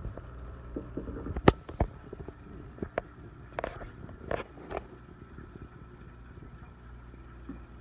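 Scattered handling clicks and knocks, the loudest about a second and a half in, over a low steady hum. The knocks thin out in the second half.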